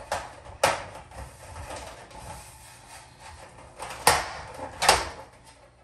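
Painted sheet-metal wiring cover of a fluorescent strip light fixture being pushed up and snapped onto the fixture channel: three sharp clicks, one about half a second in and two around four and five seconds in, with light handling and rustling between.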